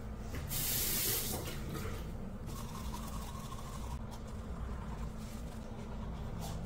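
Water running from a bathroom sink tap, with a louder rush of water about half a second in, then a steady flow into the basin.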